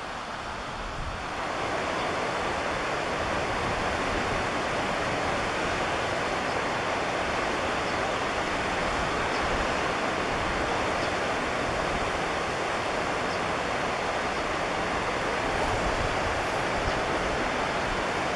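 Steady rush of white-water river rapids, growing louder about a second in and then holding even.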